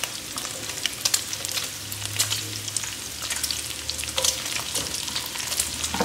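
Chopped bacon frying in its own rendered fat in a pan, sizzling steadily with many small crackles, as sliced onion is dropped in.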